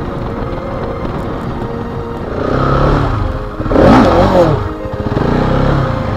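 Husqvarna 701 Enduro's single-cylinder four-stroke engine running while riding on a dirt track, revving up and down about four seconds in.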